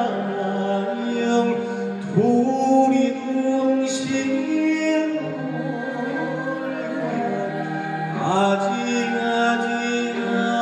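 A male Korean folk singer (sorikkun) sings with a traditional Korean gugak orchestra, holding long notes. He slides up into a new held note twice, about two seconds in and again about eight seconds in.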